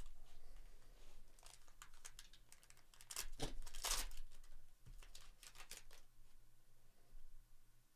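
Plastic wrapper of a Prizm FIFA World Cup trading-card pack crinkling and tearing as it is ripped open, in a string of short rustles, the loudest about three to four seconds in.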